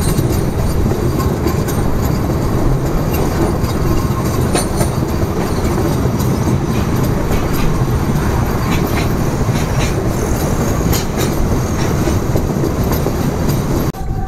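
ICF MEMU electric passenger train running at speed, heard at an open doorway: a steady loud rumble and rattle with scattered sharp clicks from the wheels. The sound dips briefly near the end.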